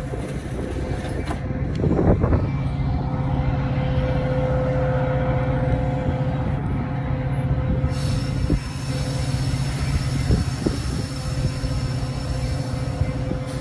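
Metra double-deck commuter train standing at the platform, giving off a steady low hum with a fixed tone over it. A short loud clatter comes about two seconds in, and a high hiss joins about eight seconds in and carries on.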